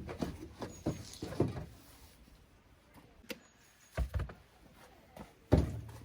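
Irregular knocks, clunks and clicks of camping gear being handled and set down, with the loudest thump about five and a half seconds in.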